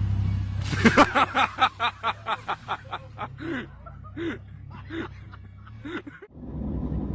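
A person bursts out laughing about a second in, a fast run of 'ha's that slows and fades over several seconds, over the low steady running of a high-tip site dumper's engine. The engine sound cuts off near the end.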